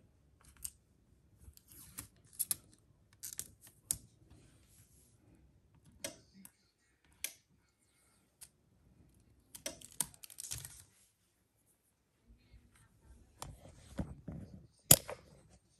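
Heat tape being picked at and peeled off sublimation paper taped to a board, with paper rustling: scattered small clicks and crinkles, and a sharper click near the end.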